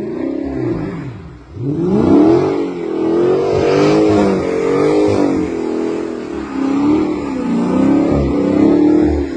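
Car engine revving up and down over and over, its pitch swinging repeatedly, with a short drop in loudness about a second and a half in.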